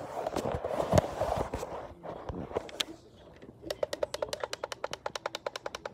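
Rapid runs of small clicks, about nine a second, from a clock's time-setting controls being worked, with handling rustle and a knock about a second in.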